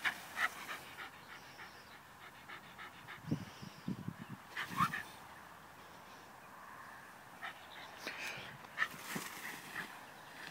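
A dog giving short whimpers and yips, in scattered bursts that are busiest around the middle and again near the end, with rustling of tall grass as it bounds through it.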